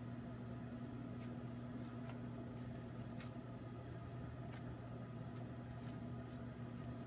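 Glass-bowl halogen convection oven running with a steady fan hum while it heats a wrapped sublimation mug, with faint scattered clicks over the hum.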